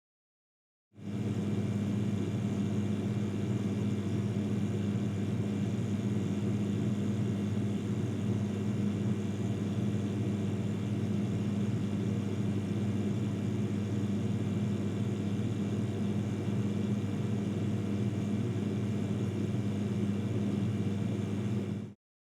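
Refrigerator compressor running with a steady low hum. It comes in about a second in and stops just before the end.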